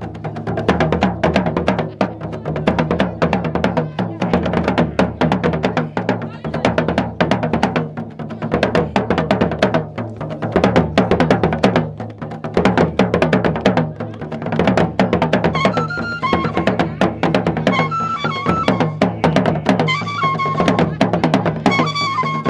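Traditional Gourounsi drum ensemble: large double-headed barrel drums struck with curved sticks and hands together with smaller drums, in a fast, dense, unbroken rhythm. From about two-thirds of the way in, short high piping notes from small wind instruments blown by the men join in, coming and going over the drumming.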